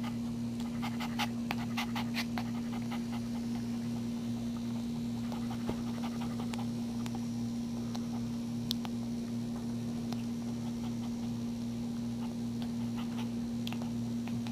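Mother dog panting after giving birth, with soft clicks of a newborn puppy suckling at her teat, most of them in a run about a second in. A steady low hum runs underneath and is the loudest sound.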